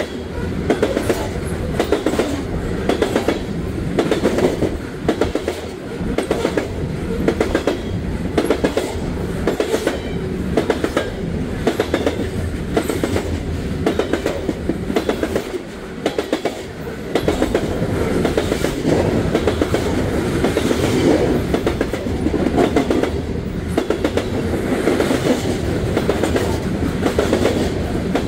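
Coal train cars rolling past, wheels clicking in regular groups over a steady rolling rumble.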